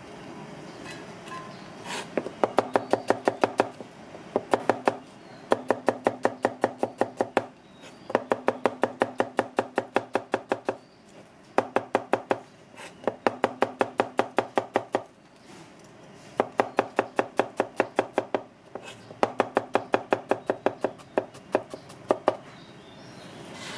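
Large kitchen knife slicing red shallots on a plastic cutting board: quick, even taps of the blade on the board, about six a second, in runs of one to three seconds with short pauses between.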